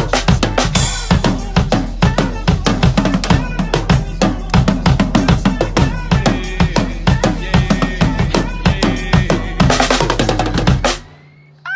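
A PDP acoustic drum kit played hard with sticks: a busy pattern of bass drum, snare and cymbal hits over a pop backing track. Near the end, nearly everything stops for under a second, then the playing comes back in.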